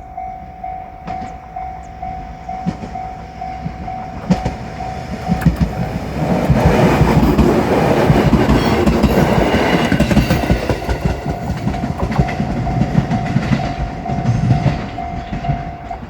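A Japanese level-crossing alarm rings in a pulsing, steady tone. From about six seconds in, a JR Shikoku 7000 series electric train passes loudly over the crossing with a heavy rumble of wheels on the track. The rumble dies down after about eight seconds, leaving the crossing alarm still ringing.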